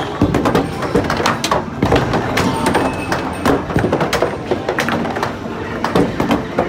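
Skee-Ball balls knocking and clattering in quick succession as they roll up the lanes and drop into the scoring rings, over the general din of arcade machines.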